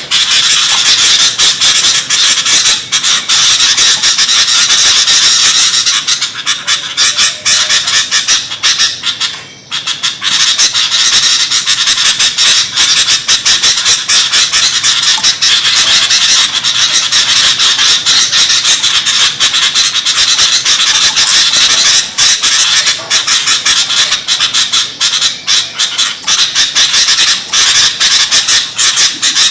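Sooty-headed bulbuls (kutilang) calling noisily and without a break, rapid chattering calls crowding over one another, with a brief lull about a third of the way through. It is a rowdy call recording of the kind played as a lure for trapping bulbuls.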